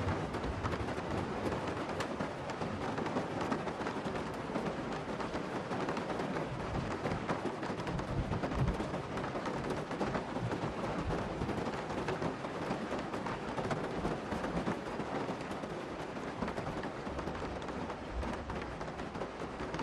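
Heavy rain pattering on a car's roof and windscreen, heard from inside the cabin as a steady hiss full of tiny drop clicks, with low rumbles swelling and fading now and then.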